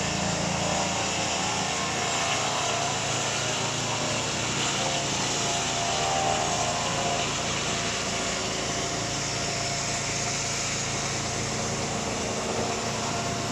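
SBR-8P-630 eight-saw cant-breaking machine running: a steady mechanical drone from its motor-driven 630 mm circular saws, with a faint higher tone over the first half.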